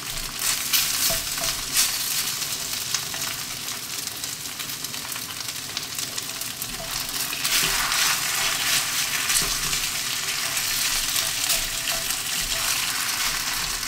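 Thin strips of marinated Dall sheep meat sizzling in a hot oiled wok, with a silicone spatula stirring and scraping them around the pan in repeated short strokes.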